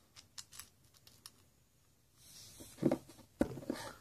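Small parts of a Quantum Escalade baitcasting reel being handled during reassembly: a few light clicks, then louder knocks and handling noise in the second half.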